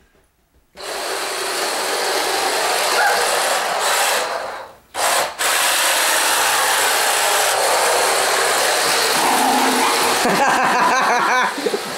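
Remote-control car's motor whirring steadily with its tyres scrubbing as it spins doughnuts. The sound breaks off briefly at the start and again about five seconds in.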